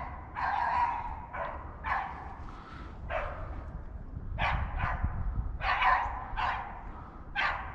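Beagle barking on a rabbit's trail: about ten short barks in an irregular run, while it works the scent in a thicket.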